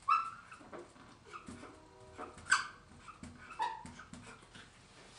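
Dry-erase marker squeaking on a whiteboard in a string of short, high squeaks as it writes, the loudest just after the start and another about two and a half seconds in.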